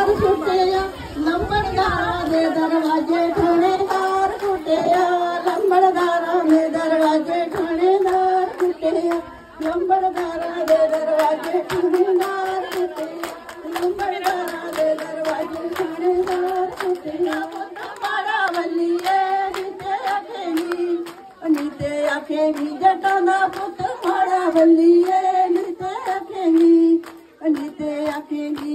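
Women singing a Punjabi folk song with hand clapping in time.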